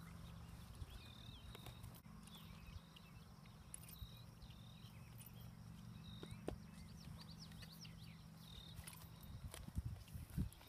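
Quiet open field: short high bird chirps repeat over a low steady rumble. Near the end, a few soft hoof thuds on grass as the horse moves off at a walk.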